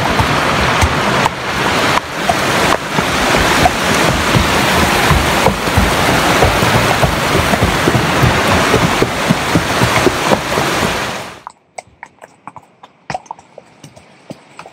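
Loud, steady rush of a mountain creek in spate, which cuts off abruptly about eleven seconds in. After it, quiet, scattered clops of horse hooves on the trail.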